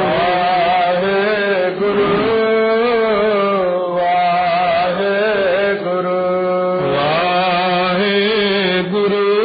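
Sikh devotional chanting (kirtan): a voice sings long, wavering held notes over a steady drone.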